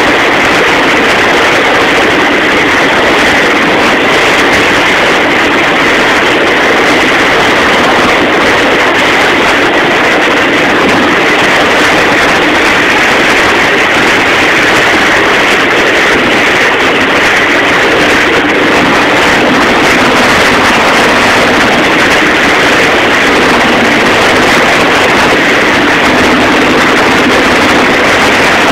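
Rushing, churning water of a boat's wake, with a steady engine drone beneath it; the sound keeps on without a break or change.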